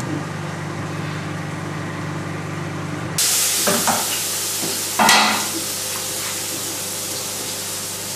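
A steady low hum, then a steady hiss of food sizzling in a lidded frying pan over a low gas flame, with two short clinks about four and five seconds in.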